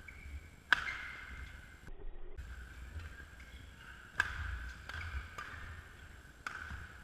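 Badminton racket strings striking the shuttlecock: three sharp hits, about a second in, just past four seconds and at six and a half seconds, each ringing briefly in the hall, over a faint steady hum.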